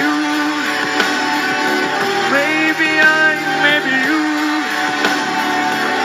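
A woman singing into a handheld microphone over instrumental backing, with sustained notes that bend and waver in pitch. New phrases begin about two seconds in and again near four seconds.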